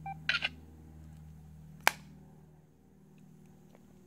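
Motorola Razr flip phone: a short electronic key beep, straight away a brief scratchy burst from its speaker, and about two seconds in a single sharp snap as the flip closes.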